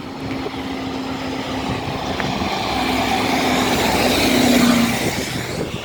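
Buses driving past close by: a steady diesel engine hum with tyre and road noise that grows to its loudest about four and a half seconds in, then fades as they go by.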